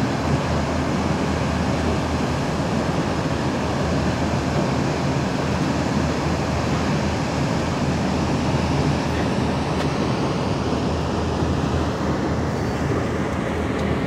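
Steady, even rumble and rush of a boat under way, heard from its open deck.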